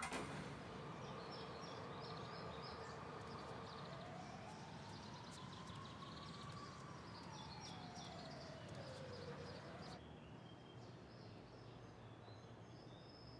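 Faint outdoor ambience: a steady background hum with repeated high chirping, and a distant tone that slowly rises and then falls again, like a far-off siren. About ten seconds in it gives way to quieter room tone with faint high chirps.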